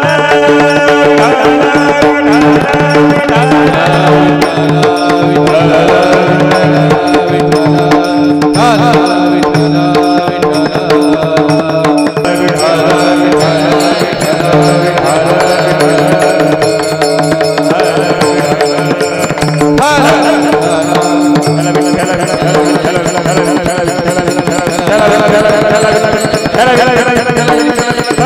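Indian devotional music with tabla playing under a steady held drone, with a wavering melodic line over it.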